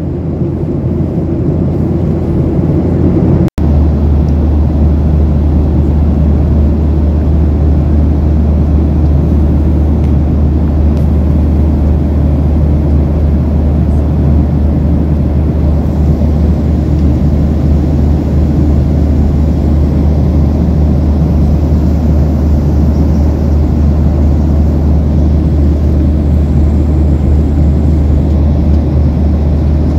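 Steady, loud drone of a jet airliner's cabin in flight: engine and airflow noise, deepest in the low end, with a momentary break about three and a half seconds in.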